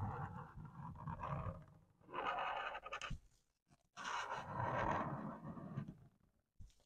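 Felt-tip marker scratching across paper as it draws an outline, in three long strokes with short pauses between them.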